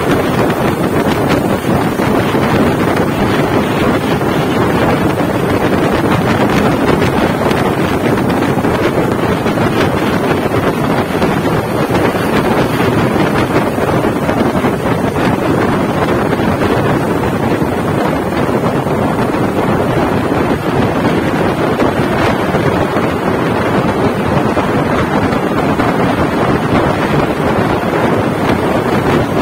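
Steady rush of wind on the microphone of a fast-moving vehicle, with vehicle engine noise blended into it and no clear engine note standing out.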